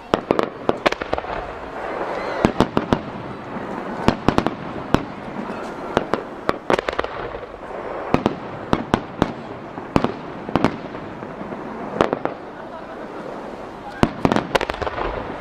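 Starmine fireworks display: aerial shells bursting one after another with sharp bangs, singly and in quick clusters of two or three, about two a second overall.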